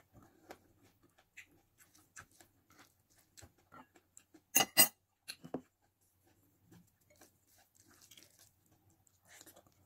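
Eating sounds: chewing and small wet mouth clicks while fingers pick through rice and sardines on a plate, with a sharp double click about halfway through.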